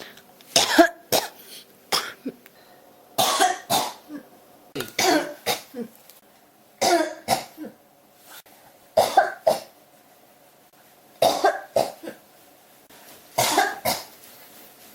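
A person coughing in repeated short fits of two or three coughs each, about every two seconds.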